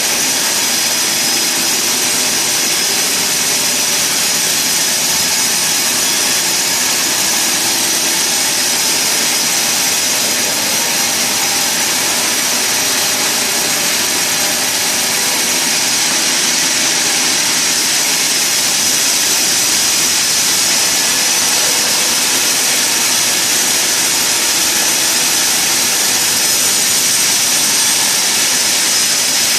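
Sawmill saw running steadily, a loud high-pitched hiss with a thin whine in it.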